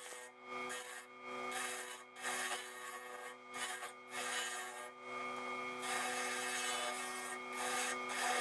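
Wood lathe running with a steady motor hum while a turning tool cuts into spinning alder, scraping in short passes at first, then in a longer continuous cut about six seconds in.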